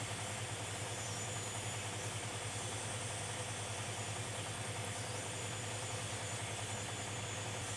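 861D hot air rework station blowing hot air at 250 °C on airflow setting 50, a steady low hum with an even airy hiss, as it reflows the solder on a chip socket's pins.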